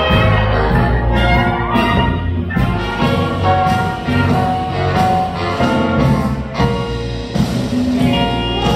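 Live big band playing jazz, led by the brass section with trumpets and trombones sounding full held chords.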